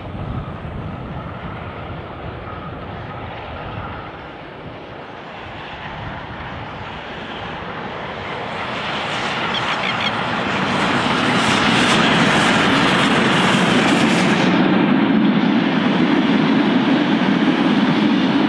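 Steam train approaching and passing close by, growing steadily louder from about halfway through and loudest as the locomotive goes past. The steady rumble and clatter of the passenger carriages rolling by follow to the end.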